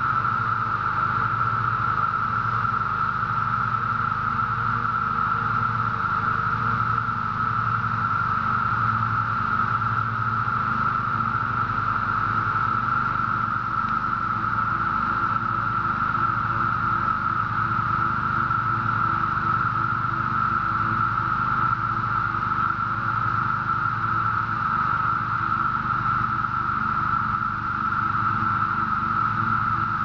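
Dense chorus of Brood XIII 17-year periodical cicadas: a steady, unbroken high-pitched drone, with a low hum underneath.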